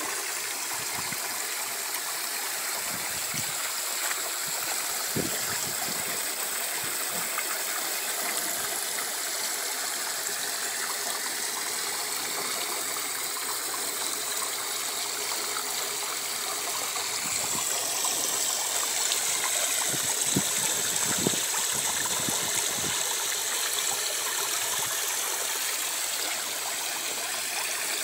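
Water flowing and splashing steadily into the fish tank of an aquaponics system, a continuous running-water trickle.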